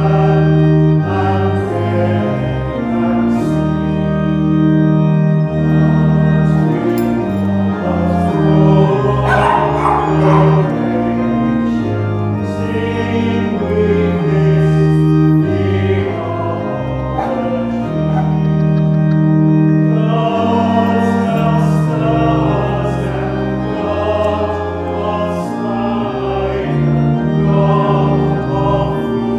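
Congregation singing a hymn in unison and harmony, accompanied by a pipe organ holding sustained chords.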